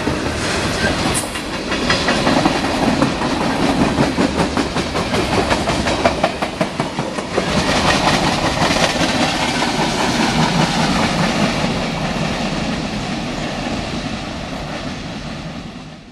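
Freight train cars, boxcars and covered hoppers, rolling past close by, their wheels knocking over the rail joints in a rapid clickety-clack over a steady rumble. The sound grows quieter over the last few seconds.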